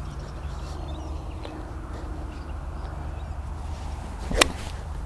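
Golf iron swung through with a brief swish and striking the ball with one sharp, loud click about four seconds in, over a steady low outdoor hum.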